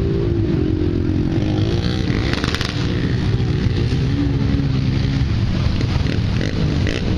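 Large ex-military truck's engine running hard and revving, its pitch rising and falling, while it pulls a stuck pickup out of a mud hole on a tow strap. A short burst of clicks about two and a half seconds in.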